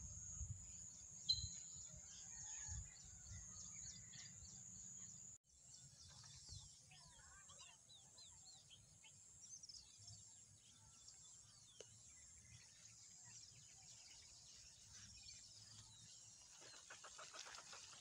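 Faint outdoor ambience with scattered small-bird chirps over a steady high-pitched hiss. The sound drops out briefly about five seconds in.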